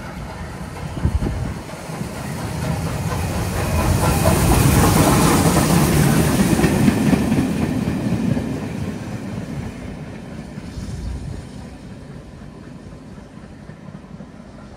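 Steam locomotive 45407, an LMS Black Five 4-6-0, running through the station with its train of coaches: the sound builds to its loudest about four to seven seconds in as engine and coaches pass, wheels running over the rails, then fades as the train draws away.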